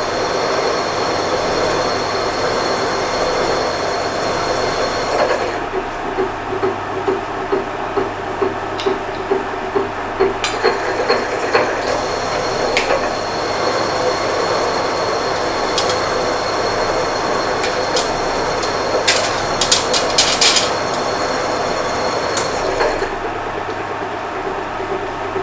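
Drill cutting through a steel part lubricated with drilling and tapping compound: a steady machine running sound with a high, thin squeal from the cutter that drops out about five seconds in and returns around ten seconds, with scattered sharp clicks, thickest around twenty seconds.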